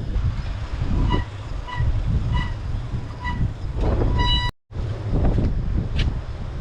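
Wind buffeting the microphone with a low rumble while riding a bicycle along a road. In the middle comes a run of short high-pitched squeaks about every two-thirds of a second, and the sound cuts out completely for a moment about four and a half seconds in.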